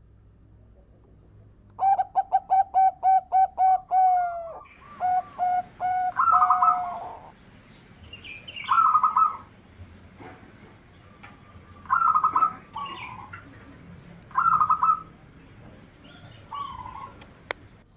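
Zebra dove (perkutut) singing: a quick run of about ten short, even notes, then separate coo phrases every two or three seconds. A single sharp click comes near the end.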